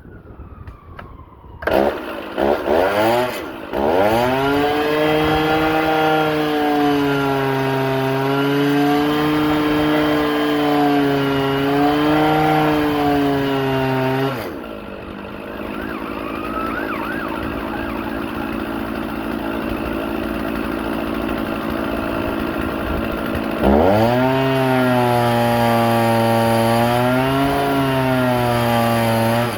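Stihl two-stroke chainsaw held at wide-open throttle against a saw tester's brake, its pitch dipping and rising as the brake load is adjusted. About halfway through it drops to a lower, rougher running sound for several seconds, then revs back up to full throttle under load. This is a hot-running load test for a heat-related run problem.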